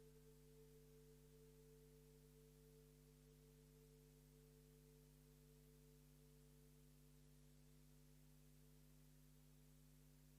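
Faint electronic drone: a few steady held synthesizer tones sustained together, the highest and strongest one easing down slightly at the start.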